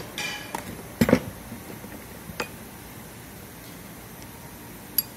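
Steel machine parts and a steel rod clinking and knocking as they are handled on a workbench: a short ringing clink at the start, a louder clatter about a second in, then single sharp clicks near the middle and near the end.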